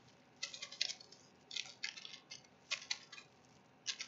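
Computer keyboard keys clicking in four short bursts of a few keystrokes each, about a second apart.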